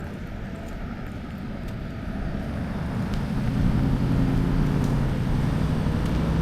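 A car approaching along the street: engine hum and road noise grow louder from about three seconds in and stay loud.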